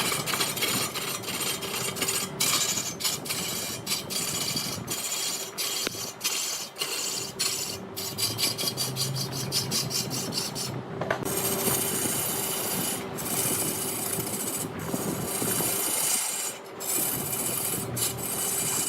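A turning tool scraping a spinning redwood log on a large wood lathe: a continuous rasping hiss with a faint steady motor hum beneath, broken by frequent brief dips.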